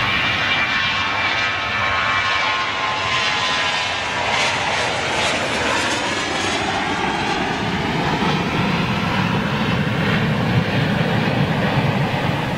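Twin jet engines of a Ryanair Boeing 737 at take-off power as it rolls, lifts off and climbs past: a loud, steady jet roar with whining engine tones that slide down in pitch as it goes by, and a deeper rumble building in the last few seconds.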